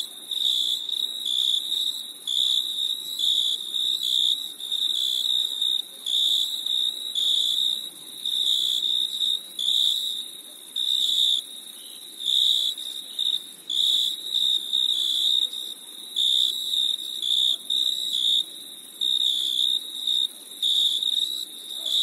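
Cricket chirping: short, high, steady-pitched chirps repeating about once a second, over a faint steady high hiss.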